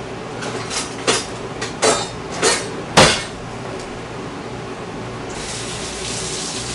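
A spoon knocking against a pot while stirring a fruit sauce: several clinks, the last and loudest a sharp tap about three seconds in, then a hiss near the end.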